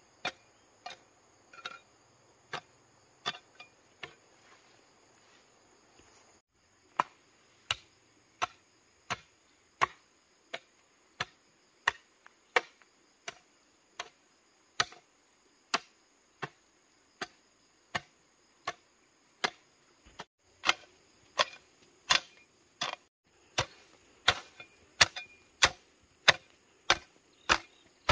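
Iron blade of a long-handled hand hoe chopping into dry, stony soil in a steady rhythm of about one and a half to two strokes a second, with a short pause a few seconds in. Insects drone steadily behind it.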